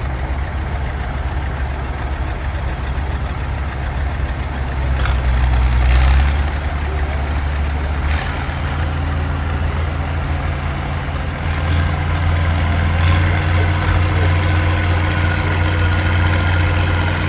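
Antique farm tractor engines idling and running slowly. The sound grows louder briefly around five to six seconds in, and a deeper, steadier engine note takes over from about twelve seconds.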